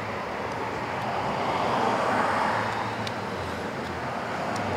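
Road traffic noise that swells about two seconds in and then eases, with a couple of faint light clicks later on.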